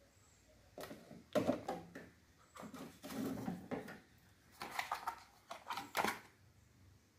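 Plastic food containers knocking and clattering as they are pulled out of a freezer compartment, a series of irregular knocks and rustles starting about a second in, ending with the lid of a frozen-meat tub being pulled off.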